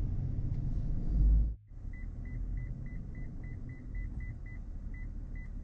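Pickup truck's reverse parking-sensor beeping: short high beeps at one pitch, about three a second, spacing out a little near the end, over the low hum of the idling truck heard from inside the cab, as the truck backs up toward a boat trailer. Before the beeps, a low rumble cuts off abruptly about a second and a half in.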